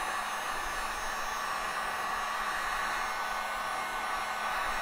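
Electric heat gun running steadily, blowing hot air onto an adhesive motorcycle tank-grip pad to make it pliable, with an even rush of air over a faint motor hum.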